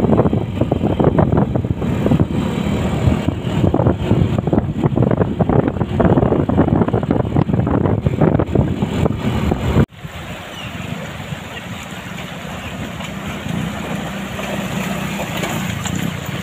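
Wind buffeting the microphone of a moving motorbike on an open road, a loud fluttering rumble. About ten seconds in it cuts suddenly to the steady rush of a shallow river flowing over rocks.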